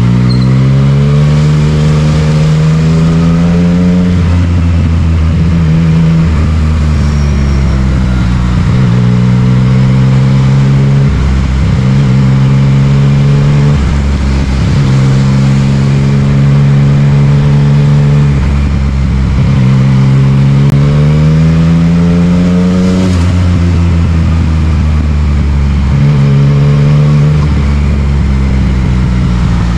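Yamaha MT-09's inline three-cylinder engine through an Akrapovic exhaust, ridden in traffic. The pitch repeatedly climbs under acceleration and then drops back, several times over, with short spells of steady running in between.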